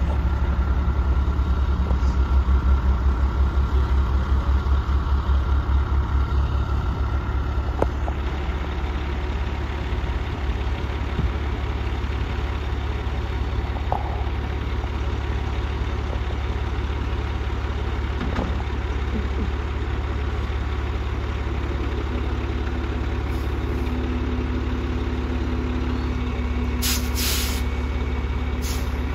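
Freightliner dump truck's diesel engine idling with a heavy low throb that pulses strongly for the first several seconds, then settles into a steady idle. A few short hisses come near the end.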